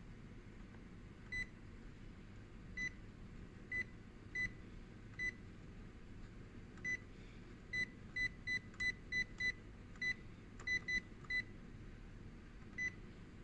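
Copier touchscreen keyboard beeping once for each key press as an email address is typed: about seventeen short, identical high beeps at an uneven pace, coming several a second in the middle.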